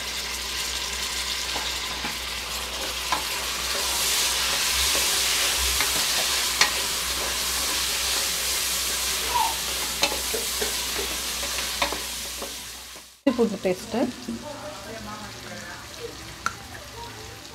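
Onions, green chillies and tomatoes frying in hot oil in a steel pressure cooker: a steady sizzle with scattered sharp clicks as the mixture is stirred. The sizzle cuts off abruptly about 13 seconds in and comes back fainter.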